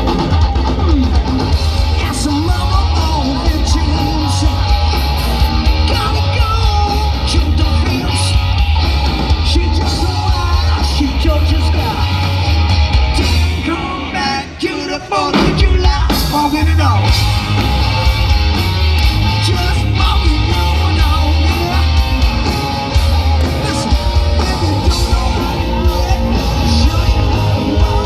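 Rock band playing live with a lead singer, heavy bass and drums. About halfway through, the band thins out briefly before the full sound returns.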